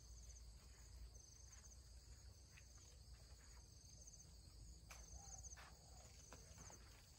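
Faint insect chirping: short, high, pulsed trills repeating about once a second over near silence, with a few soft clicks.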